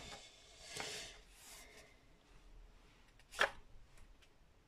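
Sheets of scrapbooking paper being handled and rustled, with soft crinkles near the start and a single sharp tap about three and a half seconds in.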